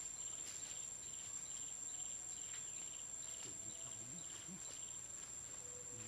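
Forest insects calling: a steady high-pitched whine under short, rapid chirps repeated about twice a second.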